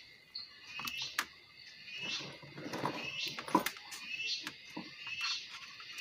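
Clicks and light rattling of hands handling a car stereo's wiring harness and crocodile-clip power leads, with one sharp click about three and a half seconds in. Short high chirps recur about once a second behind it.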